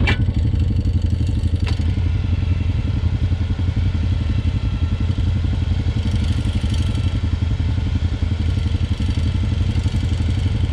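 Honda ATV engine idling steadily close by, with a fast even pulse. Two sharp clicks or knocks sound in the first two seconds.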